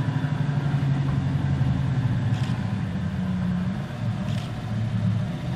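4WD pickup truck's engine working under load as it crawls up a deep muddy rut, the revs rising and falling, with a dip about four seconds in before it picks up again.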